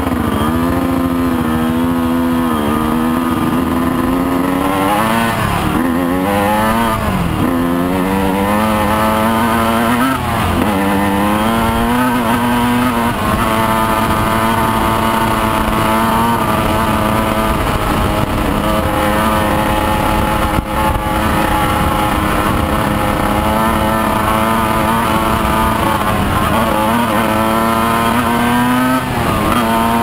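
Motorcycle engine under way. Its pitch rises and drops through several gear changes over the first dozen seconds, then holds a steady drone at cruising speed, with another drop and rise near the end.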